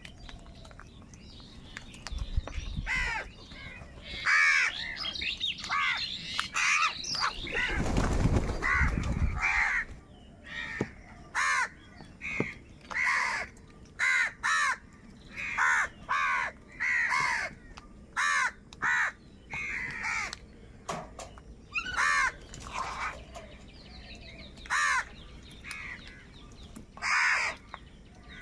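A flock of house crows cawing over and over while crowding round food: many harsh caws overlap in the first ten seconds, then single caws come about once a second with a short lull near the end. A brief rush of noise sounds about eight seconds in.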